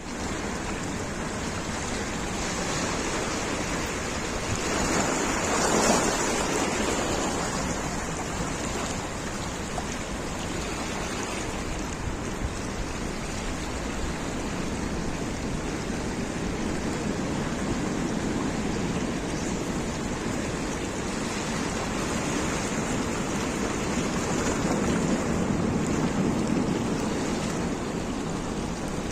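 Sea waves breaking and washing in a steady rush, surging louder about six seconds in and again near the end.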